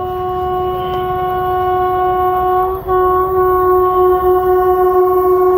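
Train horn sounding one long, steady blast on a single pitch, with a brief dip just under three seconds in before it carries on louder.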